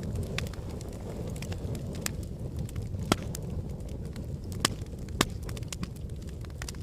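Wood fire burning in a fireplace: a steady low rumble of flames with scattered crackles and three sharper pops of the logs, the loudest about three seconds in.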